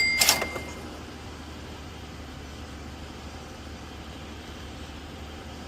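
Two sharp knocks at the start, the second ringing briefly, then a steady low hum of room background noise.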